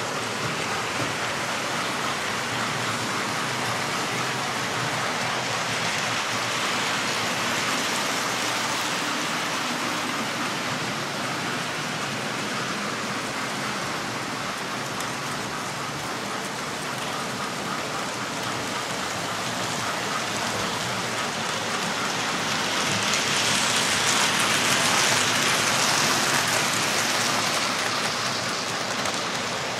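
Model trains running on the layout: a steady rushing and rattling of wheels on track with the locomotive motors whirring. The sound swells for a few seconds near the end as a train of coaches passes close by.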